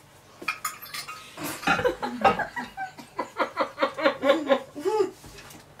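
A person laughing in a run of quick, rhythmic bursts, about five a second, from about a second and a half in until near the end.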